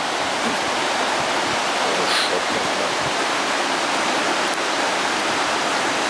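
Fast river rushing through a rapid: a steady hiss of white water over rocks.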